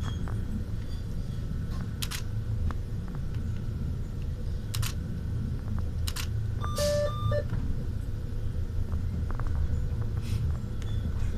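Yellow Train metre-gauge electric railcar running, heard from inside the driver's cab: a steady low rumble with a few sharp clicks. About seven seconds in comes a short two-pitch electronic beep.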